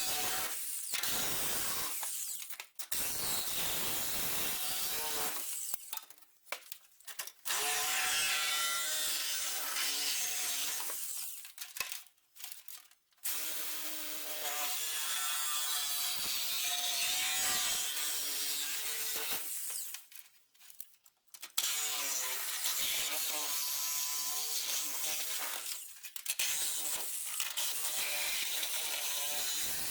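Reciprocating saw with a toothed blade cutting through car body sheet metal in several runs of a few seconds, with a wavering screech over the saw's noise and short pauses between cuts.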